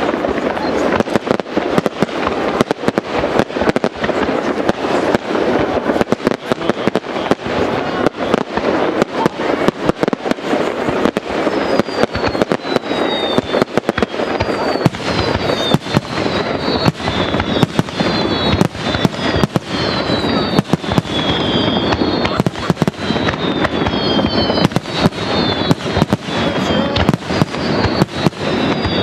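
Professional fireworks display: a dense, continuous barrage of shell bursts, several bangs a second. From about a third of the way in, short high falling whistles come in repeatedly over the bangs.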